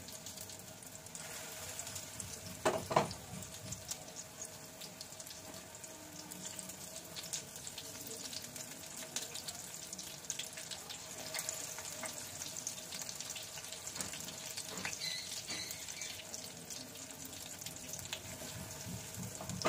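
Batter-coated fish cutlets frying in hot oil in a pan: a steady sizzle with fine crackling. A sharp knock stands out about three seconds in, and a fainter one later.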